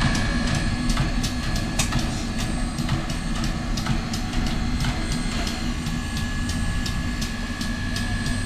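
Steam locomotive pulling a passenger train slowly along the track: a steady low rumble and hiss, with sharp clanks two or three times a second.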